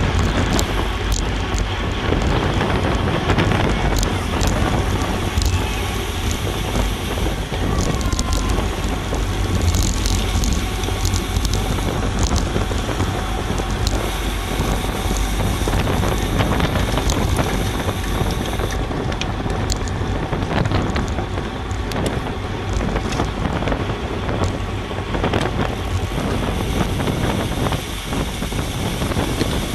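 Wind blasting across an action camera's microphone on a racing bicycle at race speed in a pack, with tyre and road noise and scattered short clicks and rattles.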